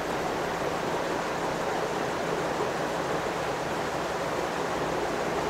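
Steady rushing air noise with a faint low hum, unchanging throughout.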